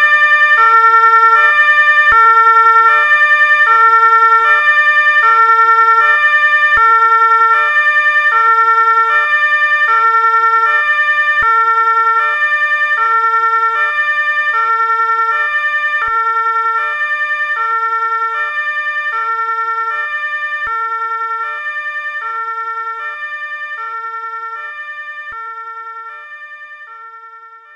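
Ambulance two-tone siren, alternating between a low and a high note, each held about half a second. It fades steadily over the last ten seconds or so until it is almost gone.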